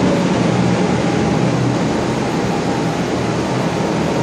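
Water-damage drying air movers (centrifugal carpet-drying blowers) running with a steady, loud whooshing hum.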